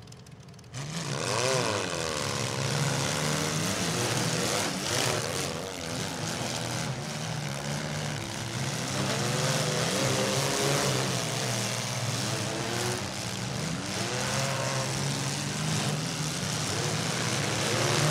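Many compact demolition-derby car engines begin revving hard all at once about a second in, and keep revving with rising and falling pitch. Dull crashes come now and then as the cars ram each other.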